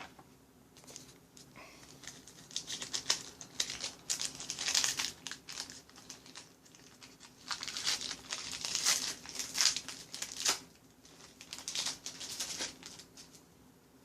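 Trading-card pack wrappers being torn open and crumpled by hand, in three bursts of crinkling with short pauses between.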